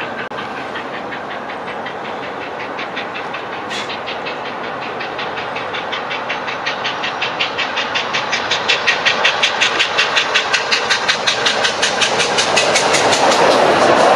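Steam locomotive working hard as it approaches, its exhaust beats growing louder into a fast, even chuff of about four to five beats a second. Near the end they thicken into a loud rush.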